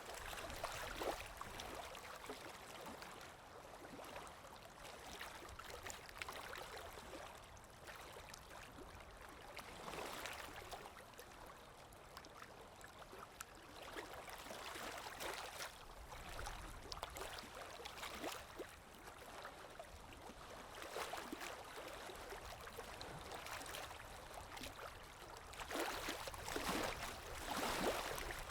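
Sea waves washing ashore, each swell rising and falling away every few seconds, the loudest breaking near the end.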